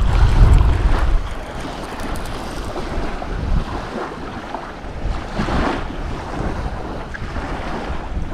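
Wind buffeting the microphone with a heavy low rumble for about the first second, then lighter wind over waves washing on the shore.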